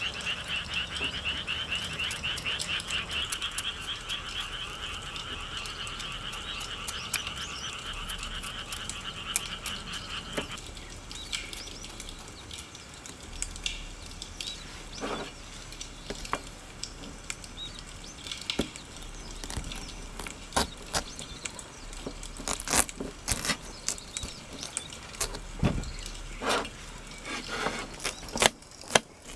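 A chorus of frogs croaking in a rapid, pulsing trill, which cuts off abruptly about ten seconds in. After it come small scrapes and clicks of a knife paring the rind off a Korean melon, growing more frequent near the end.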